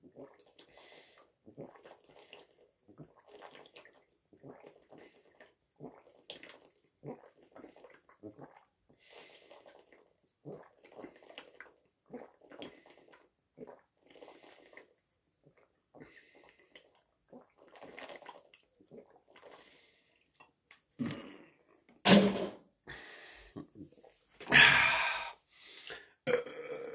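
Water gulped from an upturned plastic bottle: steady swallows about one a second, with the bottle glugging as air bubbles back in. Near the end come a few much louder mouth and breath sounds as the drinking stops.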